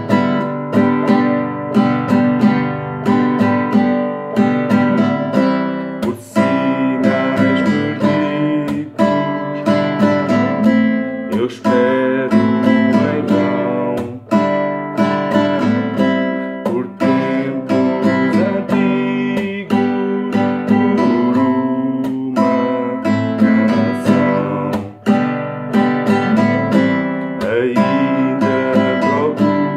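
Nylon-string classical guitar strummed in a steady rhythm of chords, with a man's voice singing over it in places.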